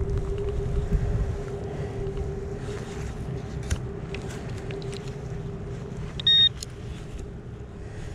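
Metal detector's steady low hum over rough rustling and wind noise, with a short, loud, high electronic beep about six seconds in.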